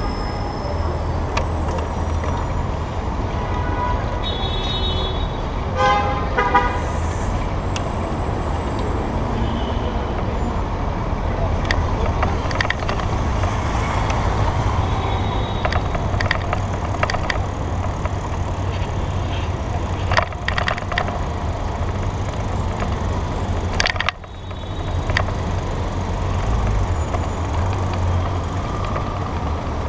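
City traffic heard from a moving bicycle, with wind rumbling on the camera microphone throughout. A car horn sounds briefly about six seconds in.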